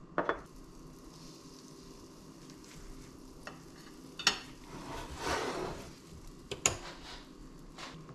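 Butter and food frying in a pan with a low sizzle. Sharp utensil clinks come just after the start, about four seconds in and again near seven seconds, with a louder rustling swell in between.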